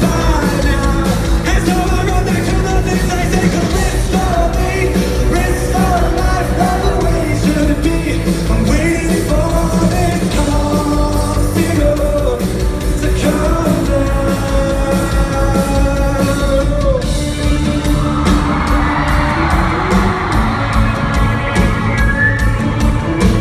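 Live rock band playing with a male lead vocal, heard from the audience, with the crowd yelling over it; about eighteen seconds in, a swell of crowd screaming rises over the band.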